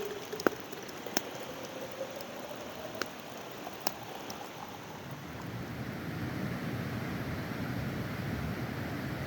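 Campfire crackling: a few sharp pops over a steady rushing hiss that grows louder a little past halfway.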